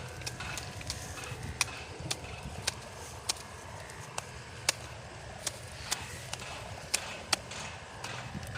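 Sharp, irregular clicks and taps, roughly one a second, over a steady low rumble of wind on the microphone.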